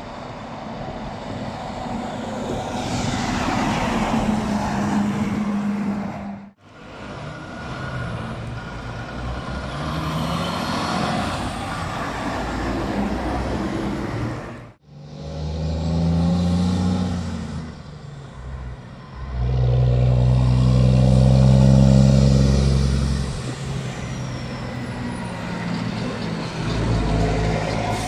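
Tri-axle dump trucks passing one after another, their diesel engines running under load along with tyre and road noise, in separate short takes that cut off sharply twice. The loudest pass, about two-thirds of the way in, is a deep engine drone.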